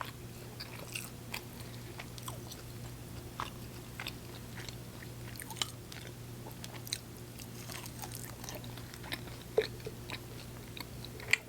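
Close-miked chewing and biting of sauced chicken wings: irregular short wet mouth clicks and crunches, over a steady low hum.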